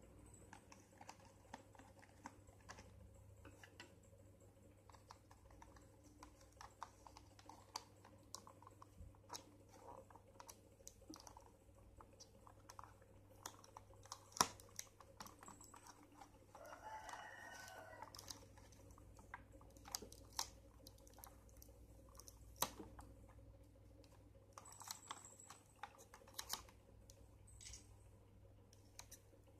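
Soft clicks and taps of small plastic stationery pieces being handled and pressed into a plastic packaging tray, with one sharper click about halfway through. A chicken crows faintly in the background a little past the middle.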